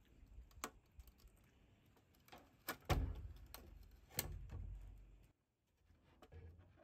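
Scattered light clicks and knocks from handling the opened Starlink dish's plastic housing, with louder knocks about three and four seconds in.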